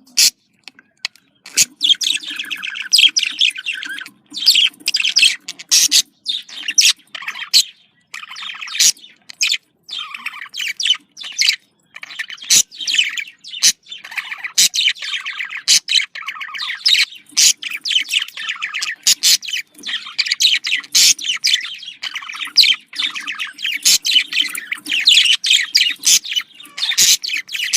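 Budgerigars warbling and chattering in a fast, unbroken run of chirps, squeaky notes and sharp clicks, with a couple of brief pauses.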